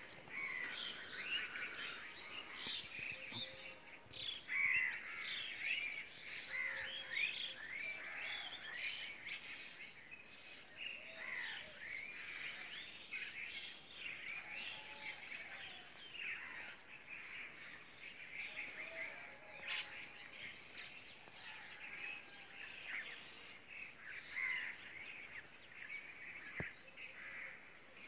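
Chorus of many birds calling and chirping at once: a dense, continuous overlap of short, quick chirps and whistles, with a few lower calls now and then.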